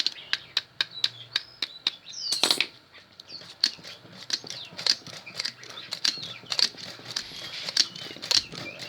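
Enamelled copper wire being wound by hand onto a power-drill armature: quick, irregular clicks and ticks, about two to four a second, as the wire is pulled and snapped into the slots.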